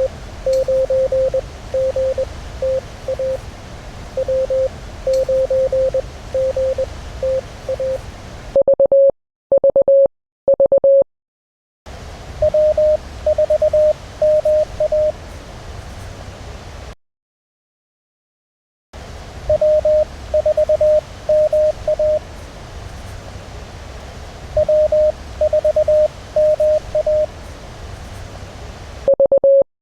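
Morse code (CW) callsigns received on an amateur radio transceiver: a single beeping tone keyed in dots and dashes over steady receiver hiss. Two short silent gaps break it, and a few louder bursts of the tone come through clean, without hiss.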